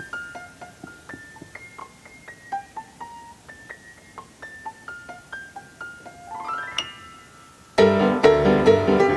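Background piano music: sparse, soft single notes, a quick rising run of notes about six and a half seconds in, then the music comes in suddenly much louder and fuller near the end.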